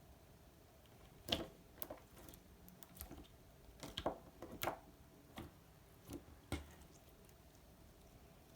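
Slime being pressed and folded by hand, making irregular soft squishing pops and clicks, about a dozen spread over several seconds with quiet gaps between.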